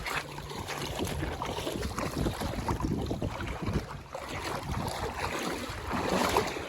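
Wind buffeting the microphone, with water sloshing around a small boat on the river.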